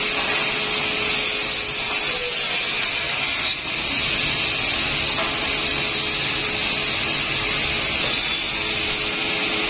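Automatic wood-cutting machine running steadily: an even, constant hiss with a faint steady hum underneath.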